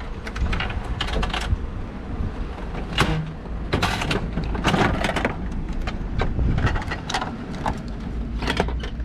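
Irregular clicks, knocks and rustles of objects being handled, over a steady low rumble.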